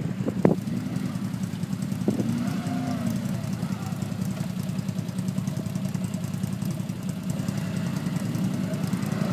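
Quad bike engine running at low revs as it crawls through deep mud, its pitch rising and falling a little with the throttle. There are a couple of short knocks in the first two seconds.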